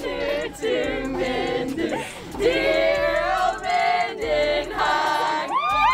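Music with a group of voices singing together; near the end several tones sweep upward at once.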